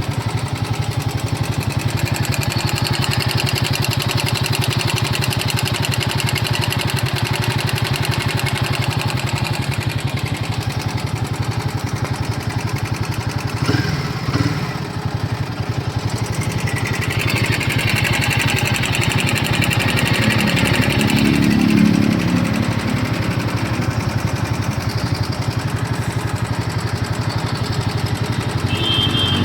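Royal Enfield Himalayan 450's 452 cc single-cylinder engine idling steadily, with the irritating engine noise that has appeared at 12,000 km. The sound is briefly disturbed about halfway and runs a little louder for a few seconds later on.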